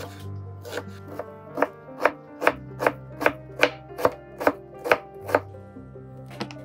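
Chef's knife chopping an onion on a wooden cutting board: a steady run of sharp knocks, about two or three a second, that stops a little after five seconds, then two more strokes near the end.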